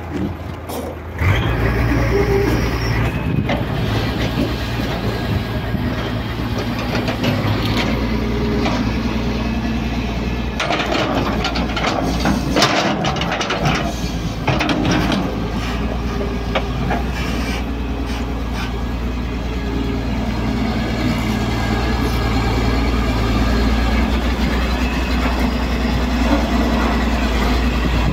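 Diesel engine of a Daewoo Solar 200W wheeled excavator running steadily under working load as it digs and swings soil. The bucket clatters and scrapes in the dirt around the middle.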